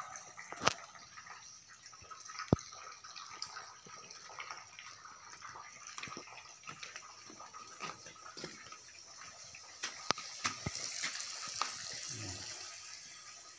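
Water trickling and dripping into a shallow earthen floor pool, a steady hiss that grows louder about ten seconds in, with a few sharp clicks.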